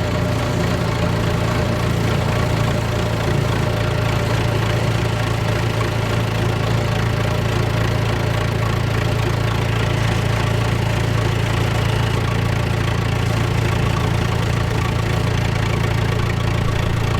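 John Deere 2130 tractor's four-cylinder diesel engine running steadily at constant speed, a continuous even note with no revving, as when it holds its load on the PTO.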